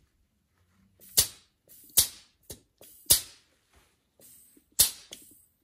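Sharp clicks, irregularly spaced about a second apart, as a two-tube SEM Dual-Mix seam sealer cartridge is dispensed into a rag, purging the air pocket and equalising the two tubes before the mixing tip goes on.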